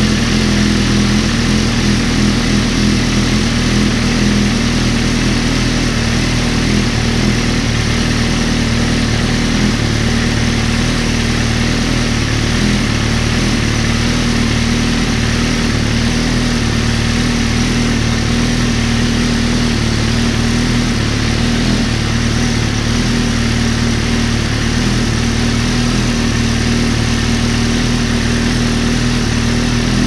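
Suzuki GSX-R sportbike's inline-four engine idling steadily through a Two Brothers aftermarket exhaust, at an even pitch with no revs.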